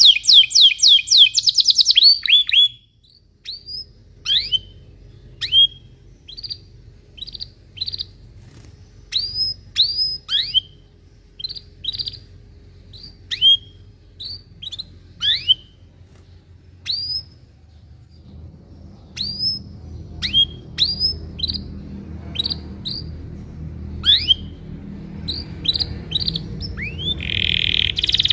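Canary singing: a fast rolling trill at the start, then single sharp down-slurred "cuit" chirps, one or two a second, with another fast roll starting near the end.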